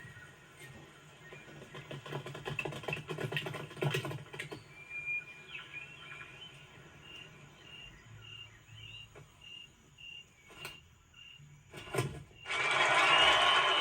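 Cricket chirping in a lull: short, high chirps repeating steadily, about one and a half a second, over faint rustling and clicks. Near the end a loud crowd cheer breaks in.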